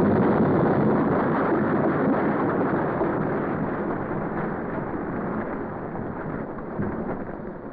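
Crash sound effect for a head-on car collision: a loud, even noise that starts suddenly and slowly dies away over several seconds.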